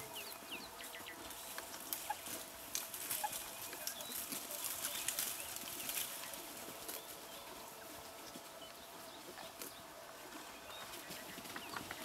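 Plains zebras moving off through dry grass and brush: scattered rustles and twig snaps, busiest in the first half, with short bird chirps and a faint steady hum in the background.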